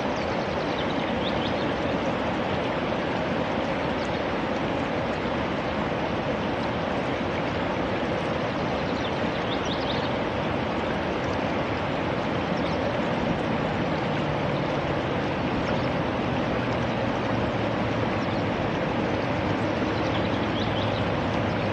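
Steady rushing of flowing water, with a few faint, short white wagtail calls above it. A low steady hum joins about halfway through.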